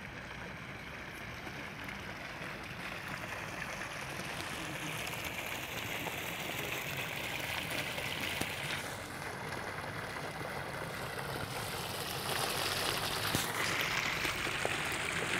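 Steady hiss and trickle of circulating water in an outdoor swimming pool, growing louder about twelve seconds in.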